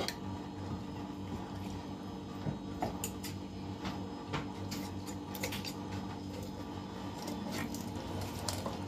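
Raw whole chicken being handled and cut with a knife: faint wet squishes and small scattered knocks and taps, over a steady low hum.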